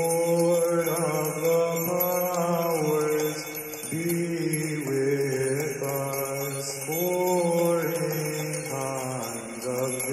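Byzantine chant: a melody sung over a low held drone (ison), the drone shifting down in pitch about four seconds in and back up about three seconds later.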